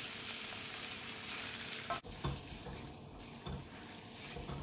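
Diced raw chicken sizzling in hot oil in a nonstick wok with onions and chillies. From about two seconds in, a spatula knocks a few times as it stirs the pieces.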